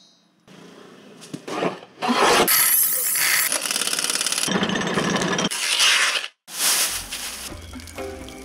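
Pneumatic impact wrench rattling hard on a car wheel's lug nut for about four seconds, then cutting off sharply, after some lighter tool clatter.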